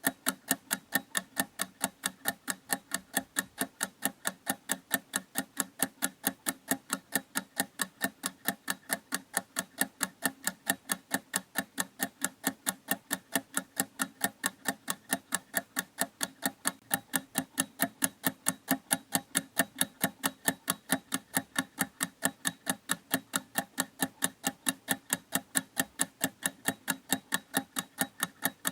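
Clock ticking at a quick, even beat, every tick alike.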